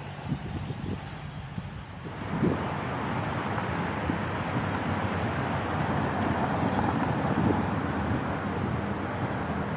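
Wind rushing over the microphone of a camera on a moving bicycle, a steady rushing noise that jumps louder about two seconds in and stays up.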